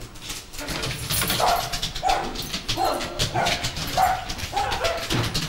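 Small dog yapping, a quick series of short, high yaps about half a second apart.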